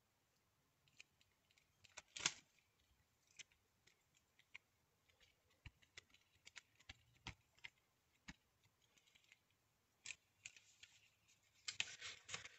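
Faint scattered clicks, taps and brief rustles of a stamp, clear acrylic block and paper and plastic sheets being handled on a craft table, with a louder rustle about two seconds in and a denser run of handling noises near the end.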